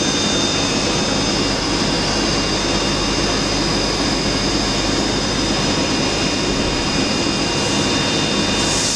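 Polyurethane elastomer centrifugal casting machine running, its large steel drum spinning at speed: a steady rushing noise with several high whining tones held throughout.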